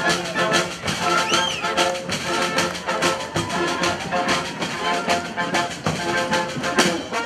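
Street brass band playing: horns such as trumpets and trombones over a steady drum beat.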